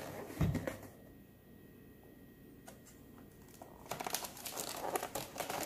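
A dull thump about half a second in, then after a quiet stretch the stiff plastic blister packaging of a boxed air pistol crinkling and clicking as it is handled.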